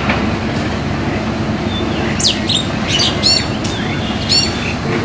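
A bird gives a string of short, sharp, high calls from about two seconds in, over the steady low rumble of an approaching train.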